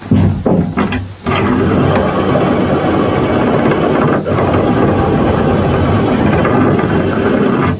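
A loud motor running, started and stopped briefly twice, then running steadily from just over a second in until it cuts off suddenly at the end.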